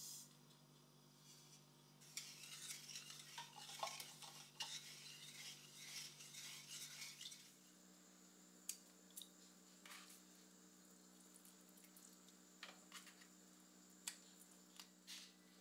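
Sugar going into a stainless steel saucepan, heard as a few seconds of dense rustling and scraping. Then come scattered light taps and clicks as orange slices are placed into the pot.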